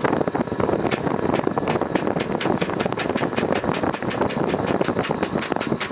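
Malfunctioning air conditioner running with a steady rush and a rapid, even clacking of about four knocks a second: the weird noise of a fault in the unit.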